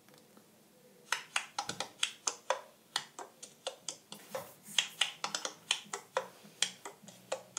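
A quick, uneven run of sharp clicks or snaps, roughly four a second, starting about a second in and stopping near the end.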